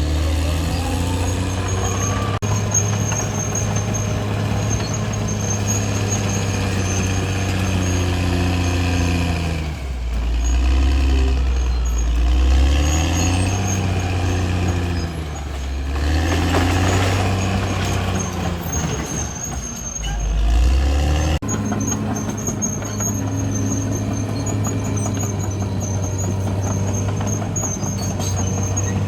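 Caterpillar D6R XL bulldozer's diesel engine running under load. Its pitch dips and rises several times around the middle, as it lugs and recovers. A faint high-pitched squeal comes and goes throughout.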